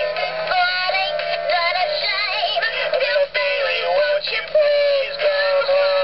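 Animatronic singing parrots wall plaque playing its song through its small built-in speaker: recorded singing over backing music, thin-sounding with no low end.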